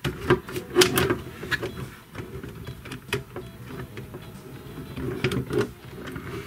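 Plastic clicking and rattling as a doll's arms and hands are pushed onto a plastic toy motorcycle's handlebars. There is a quick cluster of sharp clicks in the first second and another about five seconds in.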